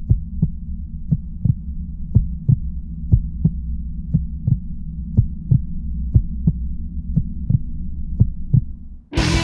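Heartbeat sound effect: paired lub-dub thumps about once a second over a steady low hum. It cuts off just after nine seconds, and rock music starts right at the end.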